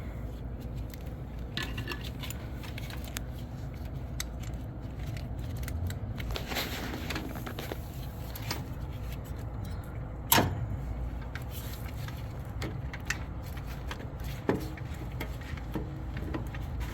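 Scattered light metallic clicks and clinks, like tools or keys being handled, over a steady low rumble, with one sharper click about ten seconds in.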